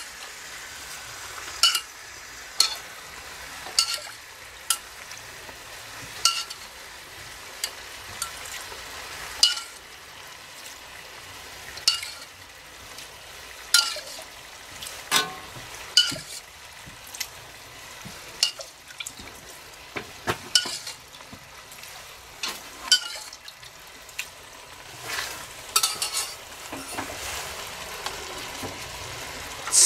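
Peppers sizzling and steaming in a cast-iron Dutch oven over charcoal as meat broth is poured in. The sizzle is broken by repeated sharp clinks of a metal spoon scraping against the pots.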